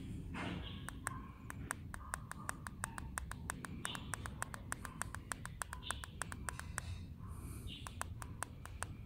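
E-bike hub-motor wheel spinning under power, with a rapid, regular ticking that quickens from about four to about eight ticks a second and then slows again, over a low hum.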